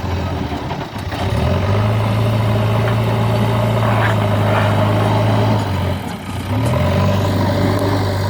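JCB 3DX backhoe loader's diesel engine running steadily at working revs. Its note drops and picks back up about a second in, and again around six seconds in.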